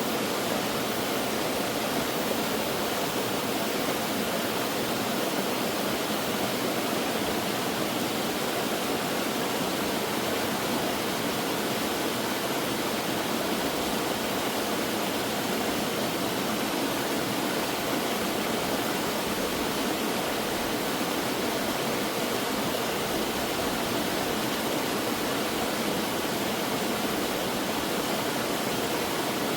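Mountain stream water rushing and splashing over rocks, a steady, unbroken flow.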